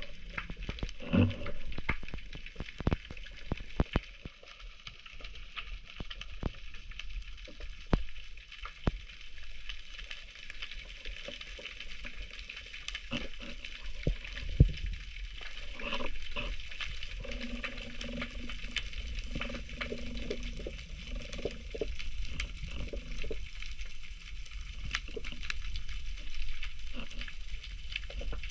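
Underwater ambience of the sea as heard by a camera below the surface: a steady crackle with many sharp clicks scattered throughout, over a low rumble, with a faint low hum partway through.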